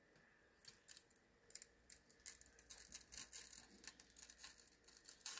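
Faint, quick light ticking of fine dried gold flakes being poured and tapped out of a small glass vial onto a sheet of paper, growing denser about two seconds in.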